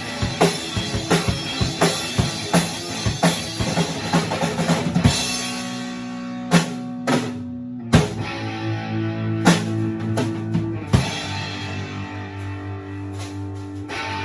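Drum kit and electric guitar jamming on the same three chords. The drums play a busy beat for about five seconds, then drop to a few single hits under held chords, and the last few seconds are mostly ringing chords.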